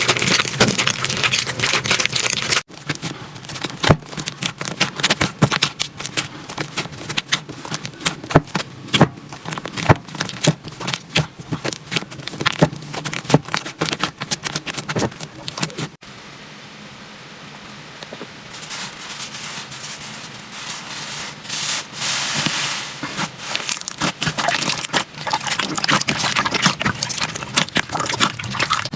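Slime being handled, giving dense crackling clicks and pops. Abrupt changes about three seconds in and again about halfway through, after which it is quieter for a moment and then grows louder again.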